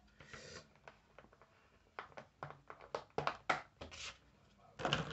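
Thin clear plastic takeout sushi container being handled and opened: a soft rustle, then a run of sharp crinkles and clicks as the lid is pulled up, the loudest crackle near the end.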